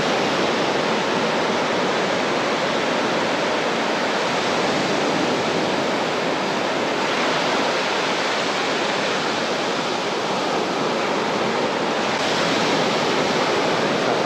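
Steady rush of sea surf breaking and washing on a beach, an even noise with no distinct events.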